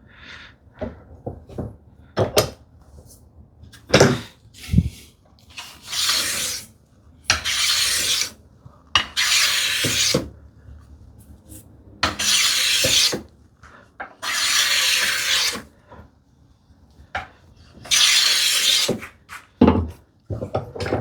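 No. 5 hand plane taking shavings along the edge of a wooden slat to chamfer the corner: six long hissing strokes, each about a second, with sharp wooden knocks from the plane and slats being handled at the start and near the end.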